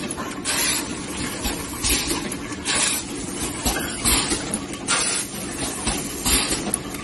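Four-cavity servo-motor bottle blow-moulding machine running: short hisses of compressed air, about one a second, over a steady machine hum.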